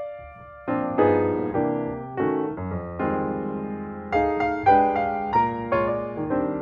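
Background piano music: a melody of struck notes that ring and fade, with a short pause about half a second in.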